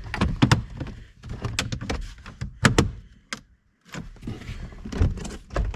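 Plastic interior car trim being pried off and handled: a quick, irregular series of sharp clicks and knocks as the clips pop and the panels are moved.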